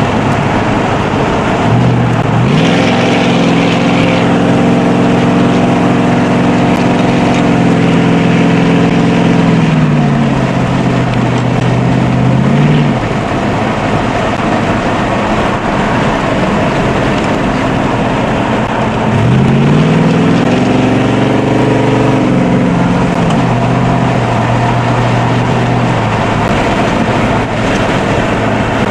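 1973 Dodge Charger's big-block 400 V8, heard from inside the cabin over road and wind noise, pulling up to a steady high pitch about two seconds in and holding it, then dropping away around ten to thirteen seconds in. It pulls up again near twenty seconds and eases off a few seconds later.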